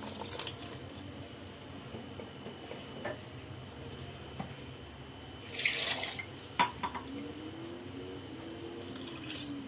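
Utensils knocking and scraping against a stainless steel cooking pot as ground coconut paste is poured in and stirred into the curry: a brief scraping rustle about five and a half seconds in, then one sharp knock.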